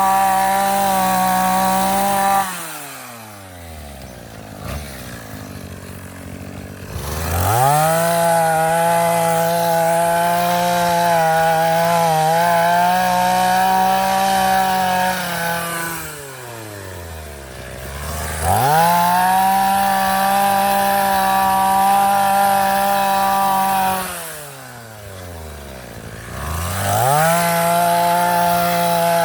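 Vulcan earth auger's two-stroke petrol engine running at high revs. Three times it drops to idle for a few seconds, about two seconds in, about sixteen seconds in and about twenty-four seconds in, then revs back up.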